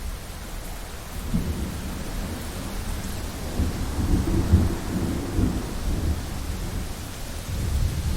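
Thunder rumbling through steady rain, building from about a second in to its loudest at around four to five seconds, then easing off.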